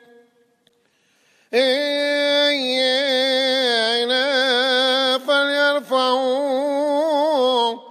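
After about a second and a half of near silence, a deacon's solo male voice begins Coptic liturgical chant: long melismatic vowels held and ornamented with a wavering pitch, broken by two short breaths.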